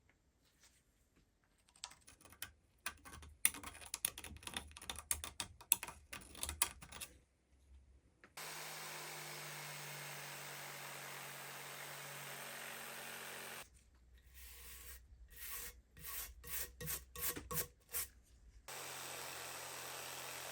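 Hand tools working wood: quick clicks and scraping strokes in two spells. Between them comes a steady machine noise with a low hum that starts and stops abruptly.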